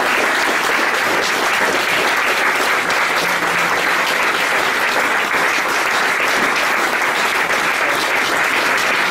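Audience applauding steadily after a live acoustic song, a dense, even patter of many hands clapping.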